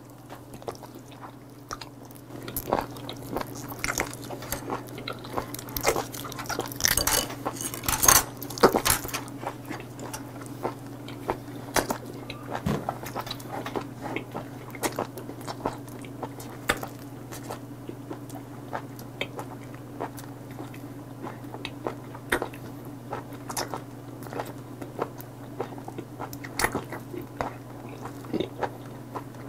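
Wet chewing and mouth smacks of a person eating live octopus (sannakji), with a stream of short wet clicks that grow louder and thicker about seven to nine seconds in. A steady low hum runs underneath.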